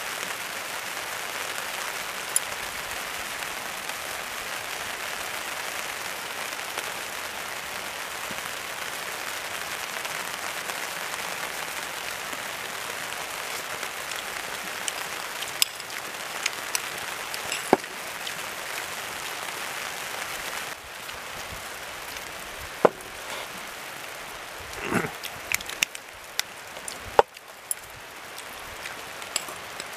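Steady rain hiss, easing somewhat about two-thirds of the way through, with scattered sharp clicks and knocks of tableware on a ceramic bowl and a wooden table.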